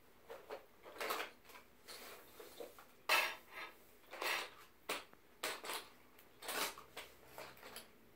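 Wooden colored pencils rattling and clattering inside a cardboard box as it is handled, lifted and set down, in a string of irregular rattles, the loudest about three seconds in.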